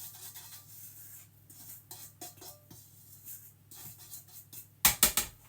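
Quiet background music with light scattered handling ticks, then a few sharp clinks and knocks of kitchen utensils near the end.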